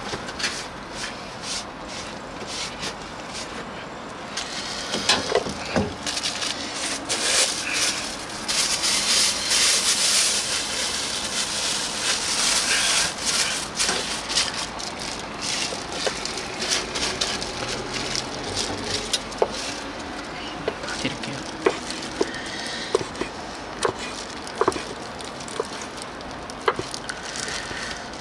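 Knife chopping sundae on a cutting board: a string of short, sharp taps at uneven intervals through the second half, with a long stretch of hissing in the middle.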